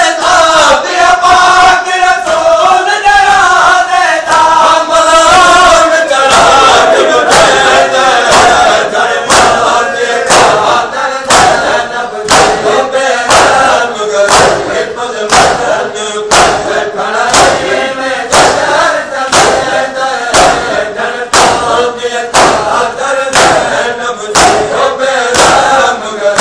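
Large crowd of men chanting a noha (mourning lament) in unison. From about six seconds in, the chant is marked by sharp unison chest-beating (matam) strikes just under two a second.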